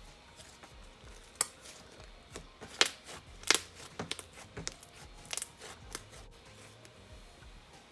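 Cloud dough slime being worked by hand, giving scattered soft pops and tearing crackles at uneven intervals, the loudest pair about three seconds in.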